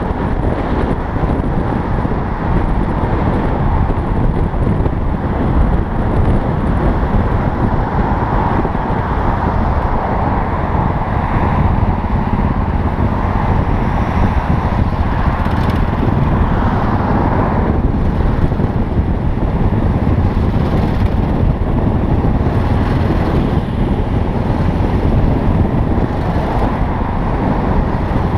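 Motorcycle riding noise: wind rushing over the helmet-mounted microphone, mixed with the Yamaha XT660Z Ténéré's single-cylinder engine running at low speed in traffic.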